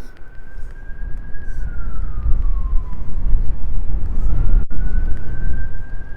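A distant emergency-vehicle siren on a slow wail: the pitch rises, holds and falls, then rises and holds again a few seconds later. Under it, a loud low rumble of wind buffeting the microphone.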